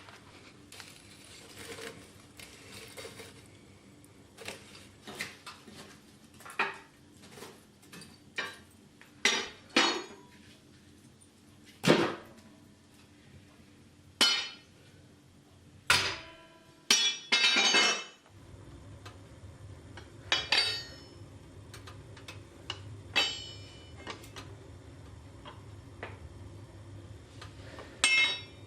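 Hammer striking steel on an anvil in irregular single blows, some ringing out metallically.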